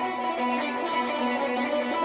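Fender Telecaster electric guitar playing a solo line of sustained, repeated notes.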